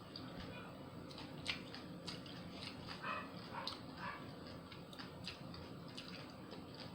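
Close-up chewing of a sub sandwich, with scattered wet mouth clicks and smacks.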